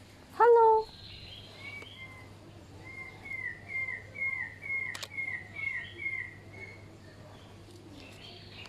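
Birds calling: one loud, short, harsh call about half a second in, then a bird repeating a series of about nine short, falling whistled notes, a little over two a second, with softer chirps behind. A single sharp click is heard near the middle.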